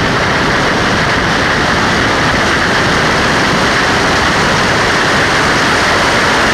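Trans Am TA2 Camaro race car's V8 at speed, heard from a camera mounted on its hood as a steady, loud rush of wind and engine noise with no clear gear changes.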